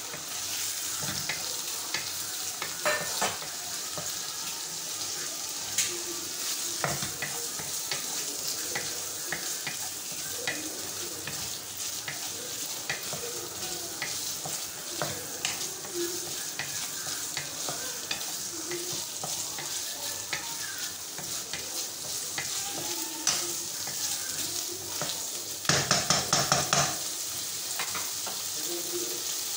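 Diced chicken and chopped onion sizzling in hot fat in a non-stick wok while a wooden spatula stirs and scrapes them around the pan, with scattered clicks of the spatula against the pan. About 26 seconds in comes a second or so of louder rapid clatter.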